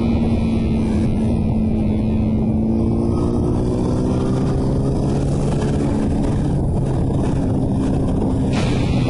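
Motorcycle engine running at a steady road speed, its hum drifting gently up and down in pitch over a dense low rumble.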